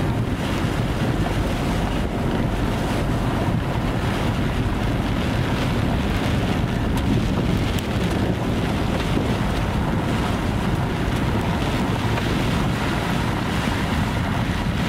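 Steady storm wind rushing and buffeting across a phone's microphone in heavy rain.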